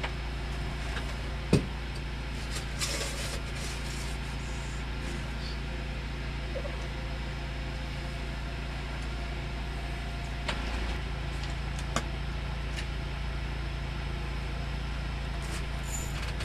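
Steady low mechanical hum inside an enclosed Sno Bear ice-fishing cabin, with a few sharp clicks and taps from fishing tackle being handled. The loudest click comes about one and a half seconds in.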